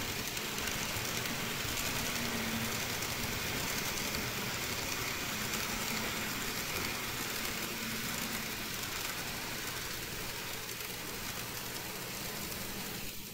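N-gauge model train running along elevated viaduct track: a steady running noise of motor and wheels with a faint low hum, growing a little quieter as the train moves off.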